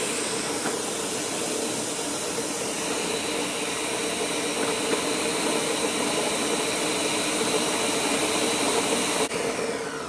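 Countertop blender running steadily, grinding peanuts into peanut butter, with a constant whirring tone over the churning of the nuts. Near the end it is switched off with a click and the motor winds down in falling pitch.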